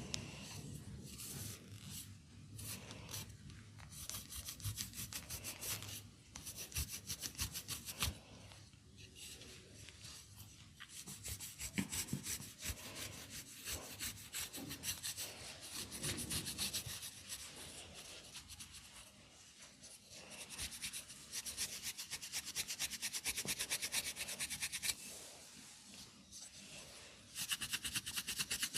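Hands rubbing and scratching quickly through hair and over the scalp in a head massage, a dense run of rapid strokes that eases off for a few seconds twice before picking up again.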